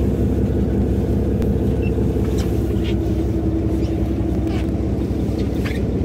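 Tour boat's engine running steadily: a low drone with a held humming tone that fades about three-quarters of the way through, heard from the open deck.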